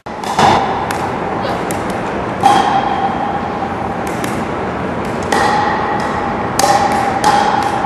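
Pickleball paddles striking plastic pickleballs, with the balls bouncing, several players at once: an irregular series of sharp clicks.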